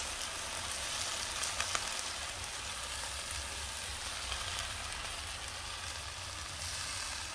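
Shrimp sizzling and frying in a cast-iron kazan over hot charcoal as soy sauce is poured in: a steady hiss with faint crackles.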